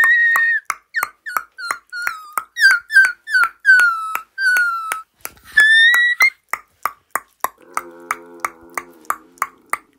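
A dog whining in high-pitched whines, one long and then a string of short ones that slide downward, with a last rising whine about six seconds in, over a steady click about three times a second. Near the end the whining stops and a lower buzzy tone sounds for about two seconds while the clicks go on.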